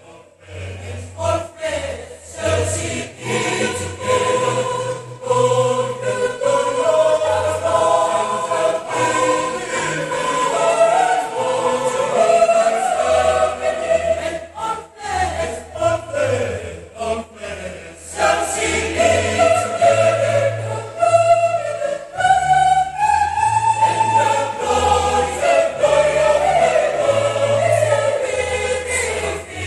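Mixed choir of women's and men's voices singing a sacred piece in parts, the women's voices carrying the melody over the men's lower voices, with only brief pauses for breath.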